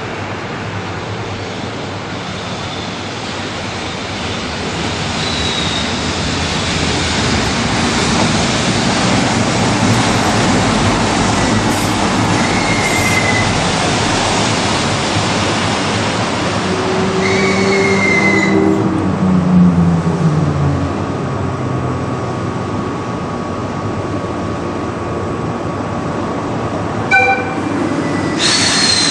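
EF65 electric locomotive and its train rolling slowly, with short falling wheel squeals, then slowing with a falling low tone and coming to a stop about two-thirds of the way through. After that a quieter steady hum remains, a short sharp sound comes near the end, and a louder noise starts just at the end.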